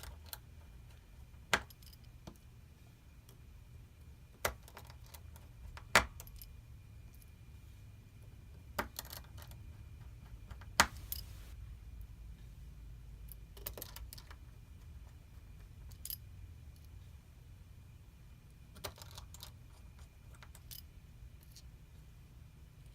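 Scattered small metallic clicks and taps of a precision screwdriver and tiny screws going into a Samsung Galaxy S9's metal frame, about a dozen spread irregularly, the loudest two about six and eleven seconds in. A low steady hum runs underneath.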